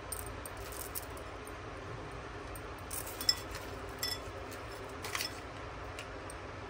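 Light clinks and taps against a glass bowl as ingredients are handled and mixed in it, a few scattered strikes with the sharpest, briefly ringing one about halfway through, over steady background noise.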